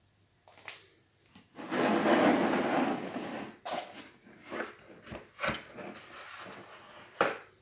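Handling noise: a short rubbing, rustling stretch, then a series of sharp knocks and clicks, as of an object being picked up and set down.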